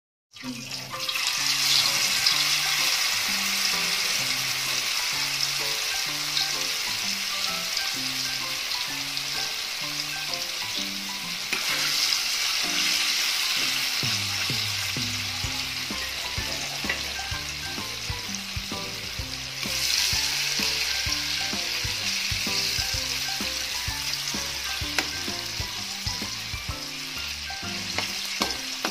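Tofu cubes frying in hot cooking oil in a wok, a steady sizzle that starts about a second in and swells twice more, with a metal spatula stirring and scraping the cubes.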